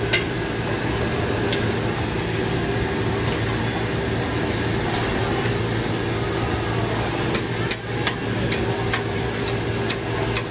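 Vegetables and meat sizzling on a hot Mongolian-barbecue griddle over a steady hum. A metal spatula clinks and scrapes on the griddle plate, a few times early on and then about twice a second from past halfway.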